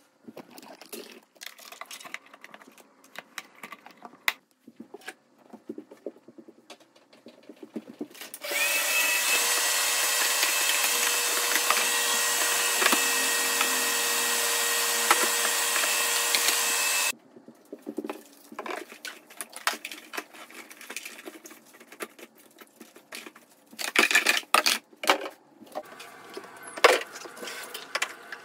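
Plastic parts of an automatic litter box being handled, with clicks and knocks. About eight seconds in, a vacuum cleaner starts and runs steadily with a whine for about eight seconds, then cuts off suddenly. Near the end comes brush scrubbing on the plastic drum.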